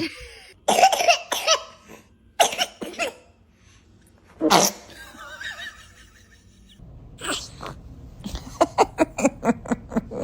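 A baby sneezing and coughing in several short, sharp bursts, the strongest about halfway through. Near the end comes a quick run of short pulses.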